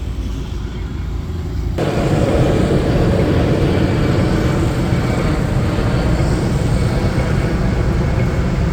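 Steady city street traffic noise, a dense rumble of passing vehicles that jumps abruptly louder and fuller about two seconds in.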